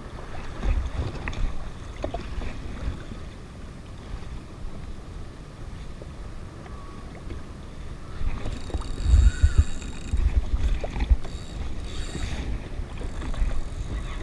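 Gusty wind rumbling on the microphone over choppy water lapping at a jet ski's hull, with stronger gusts about nine seconds in.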